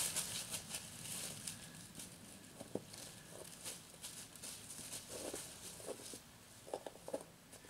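Dry fallen leaves rustling and crunching: a rake scratching through them at the start, then quieter patter as a dog walks about in the leaves, with a few short soft sounds near the end.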